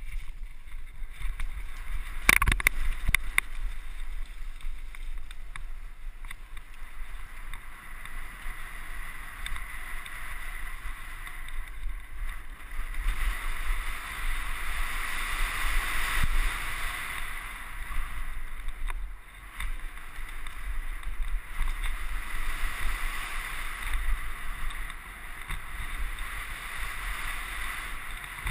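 Mountain bike running fast down a rough gravel and dirt trail, heard from a handlebar-mounted camera: a continuous rush of tyre noise, rattle and wind on the microphone, with a sharp clatter of knocks about two seconds in.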